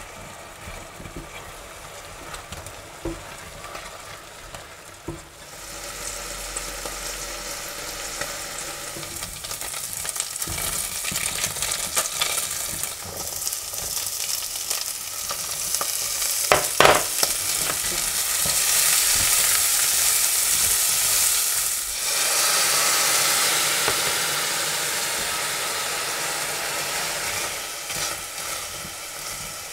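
Meat cubes sizzling as they fry in hot oil in a stainless steel pot, stirred with a silicone spatula. The sizzle builds and is loudest past the middle, after chopped onion goes in, with a brief sharp knock a little past halfway.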